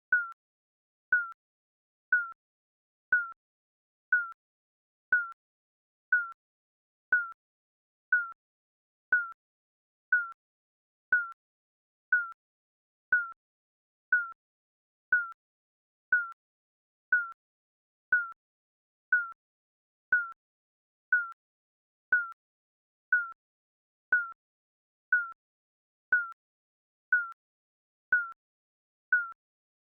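Digital countdown timer beeping once a second, each a short single-pitched electronic beep with a sharp click at its start.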